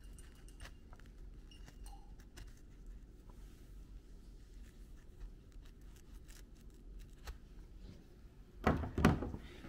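A utility knife blade cuts through the skin backing of a ram fur pelt in faint ticks and short scrapes. Near the end comes a louder burst of handling noise as the pelt and the cut strip are moved about.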